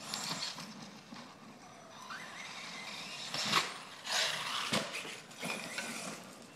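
Electric RC truck driving on dirt: the motor whines, rising in pitch about two seconds in as it speeds up, and the tires spray dirt and gravel. There are two sharp knocks a little over a second apart, the truck hitting the ground.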